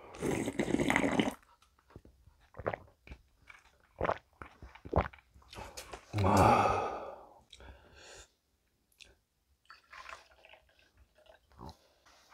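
A person slurping a sip of sundae gukbap broth from a plastic takeout container, followed by mouth clicks and chewing sounds. A loud breathy exhale comes about six seconds in.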